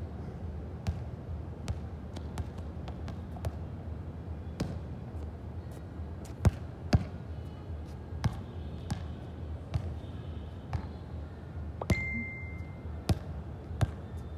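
A run of irregular sharp knocks or thuds, one or two a second, over a steady low hum, with a short high beep about twelve seconds in.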